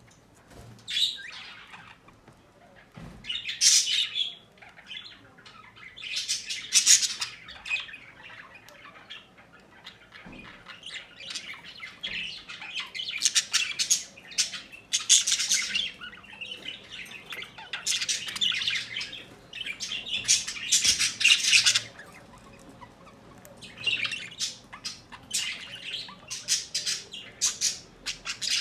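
A bird calling in repeated bouts of a second or two, with scratchy rather than whistled calls.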